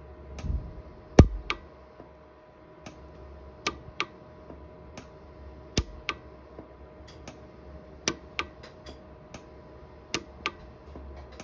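Orion 150s pulse arc micro TIG welder firing single weld pulses onto a silver ring with fill wire, filling porosity: a sharp snap with each pulse, irregularly spaced at about two a second, the loudest about a second in.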